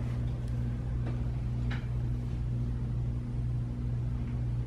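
Steady low hum of room equipment, with a faint brief hiss a little before the middle.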